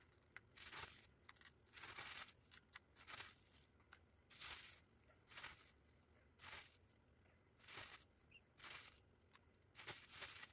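Graham crackers being crushed between the fingers into crumbs: faint crunching and crumbling in about nine short bursts roughly a second apart.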